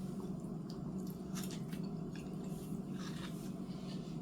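Close-miked chewing with soft wet mouth smacks and small clicks while eating sauce-coated chicken nuggets, with no crunch. A steady low hum runs underneath.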